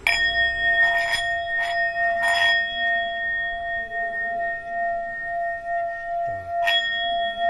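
Tibetan-style singing bowl struck with a wooden mallet, ringing on with a long, steady tone and clear overtones. It is struck again several times, with a fresh stroke near the end.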